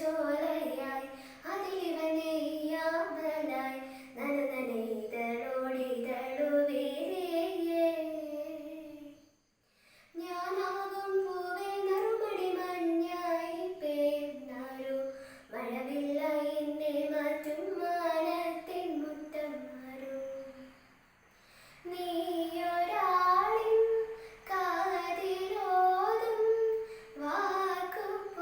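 A girl singing a Malayalam song solo and unaccompanied. She breaks between phrases, falling almost silent about nine seconds in and again around twenty-one seconds.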